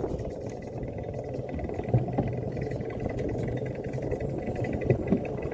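Luge cart rolling down a concrete track: a steady low rumble of its wheels, with a sharp knock about two seconds in and another near the end.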